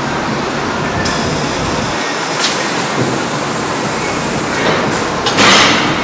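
Milking parlour machinery running with a steady loud noise, broken by short hisses of air about two and a half seconds in and just before five seconds, and a longer, louder hiss near the end.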